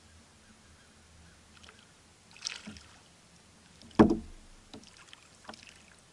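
Knocks on the plastic hull of a Hobie Outback fishing kayak while a big blue catfish is fought close to the boat on a hard-bent rod. There is a short rush of noise about two and a half seconds in, then a sharp loud knock about four seconds in, the loudest sound, and a few lighter taps after it.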